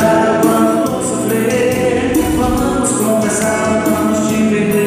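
Forró pisadinha music: a male singer sings into a microphone over keyboard accompaniment with a steady beat.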